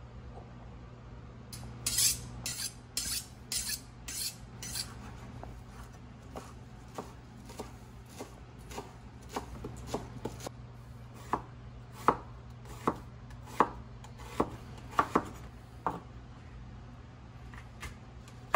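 Chef's knife chopping cilantro and bell peppers on a bamboo cutting board. A quick run of sharp strikes, about three a second, comes a couple of seconds in, then slower single cuts at about one to one and a half a second, stopping a couple of seconds before the end.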